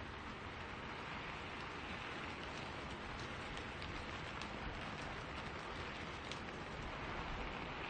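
Steady rain falling in a spruce forest, a constant hiss with the odd sharper drop tick.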